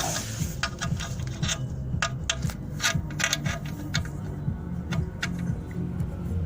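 Irregular light clicks and rubbing as an oil-pan drain plug is threaded in by hand.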